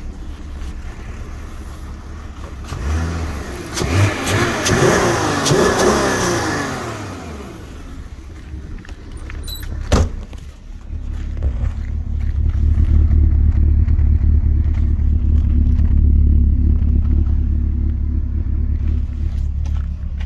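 2006 Porsche Cayenne engine running at idle, revved once about three seconds in, its pitch rising and falling back within a few seconds. There is a sharp click about ten seconds in, then it idles louder and steadily. The engine shakes and misfires despite new spark plugs and coil packs, which the owner puts down to a vacuum leak or throttle body fault.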